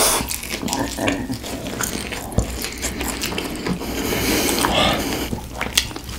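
Close-miked bites and chewing of crispy fried chicken, with many short crunches of the coating.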